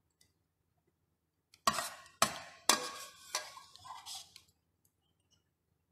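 A metal ladle knocking and scraping in a stainless steel pressure cooker pot and against a ceramic bowl as pork ribs are scooped out: four sharp clinks about half a second apart, starting about one and a half seconds in, then lighter scraping.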